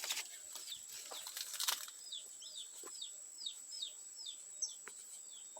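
A small songbird calling a run of about eight short, high notes, each sliding down in pitch, starting about two seconds in. Before the notes there are brief rustling crackles.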